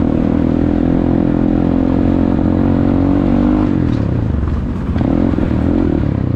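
Dirt bike engine running steadily under way, heard from the rider's seat. About three and a half seconds in, the throttle eases and the engine note drops. It dips briefly, then picks up again.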